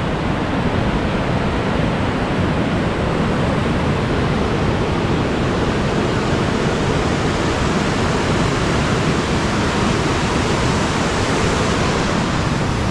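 Waterfall: a steady, loud rush of falling water with no break or change.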